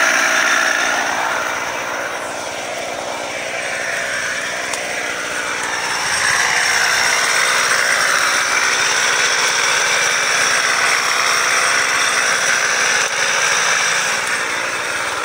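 Two-stroke gas chainsaw running continuously. Its revs drop about two seconds in and climb back up around six seconds, then stay high.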